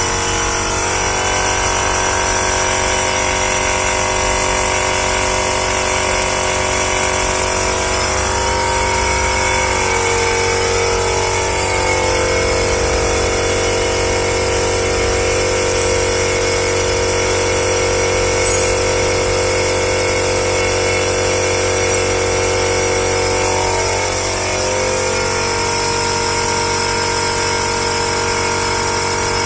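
Shrink-film packaging machinery running steadily: a continuous motor and fan hum with a high whine. Its tone shifts slightly about ten seconds in and again near the end.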